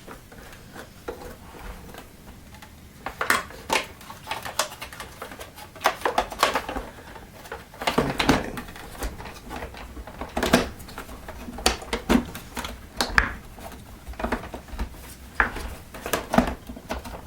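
Hard plastic parts of a Miele S5210 vacuum cleaner being handled and fitted back together during reassembly: irregular clicks, knocks and rattles.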